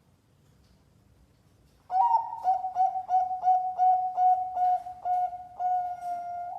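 Zebra dove (perkutut) cooing, the song of a competition-class bird: after about two seconds of quiet comes a quick run of short clipped coos at one pitch, about three a second, ending in one long held note near the end.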